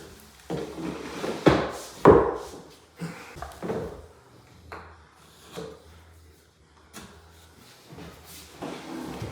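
Wooden knocks and handling noise as MDF skirting boards are moved and set against the wall, with two sharp knocks about one and a half and two seconds in, then lighter taps.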